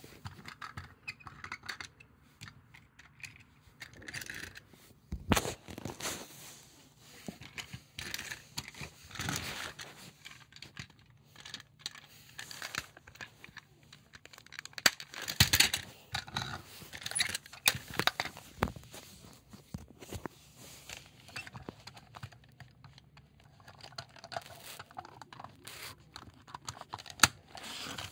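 Irregular clicks, taps and rustling as hands handle small plastic toy tram cars, with fabric rubbing at times.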